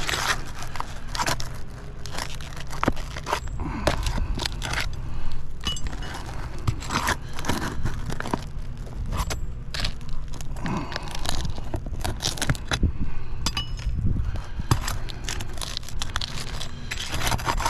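Brittle old asphalt shingle being lifted to get at its nail: irregular scraping, crackling and clicking as the weathered shingle is worked loose.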